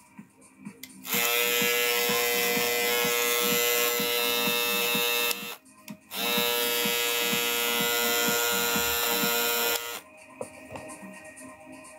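Cordless electric foil shaver switched on and running steadily, twice for about four seconds each with a short stop between: a test run after repair.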